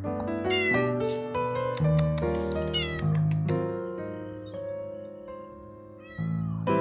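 Young tabby tomcat meowing over background piano music, which is the louder sound throughout.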